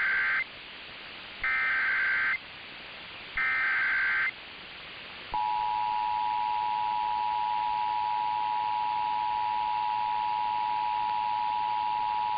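Emergency Alert System SAME header: the end of one short buzzy data burst, then two more about two seconds apart. About five seconds in comes the steady two-tone EAS attention signal, the 853 and 960 hertz pair, which announces an alert, here a flash flood warning. A faint radio hiss runs underneath.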